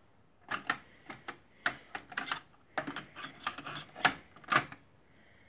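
A run of about fifteen sharp, irregular clicks, some in quick pairs, from controls being worked on an Aiwa hi-fi stack: switches and keys on the amplifier and the AD-WX707 cassette deck. The music is cut off while they sound.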